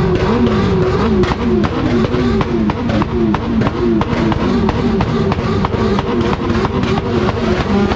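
Several motorcycle engines revved over and over, their pitch rising and falling in quick overlapping swells, with frequent sharp cracks throughout.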